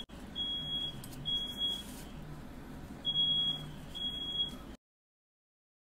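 Smoke alarm sounding, set off by smoke in the room: a high, steady beep repeated in threes, each beep about half a second long, with a pause between groups. The sound cuts off abruptly near the end.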